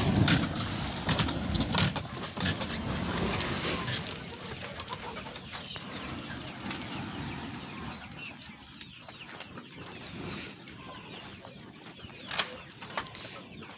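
Burning spray from a knapsack sprayer's lance rushing and crackling as it flames the ground, loudest in the first few seconds, with birds in the coop calling.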